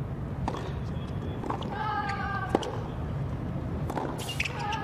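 Tennis rally on a hard court: several sharp racket-on-ball hits about a second apart, with a player's short, drawn-out grunt on a shot about two seconds in and again near the end, over a steady low rumble of crowd and background noise.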